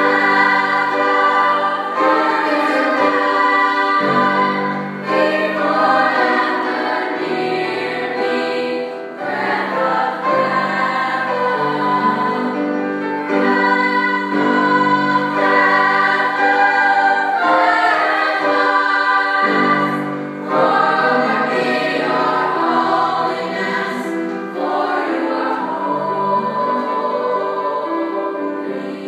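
Girls' school choir singing a slow sacred song in several-part harmony, with long held chords.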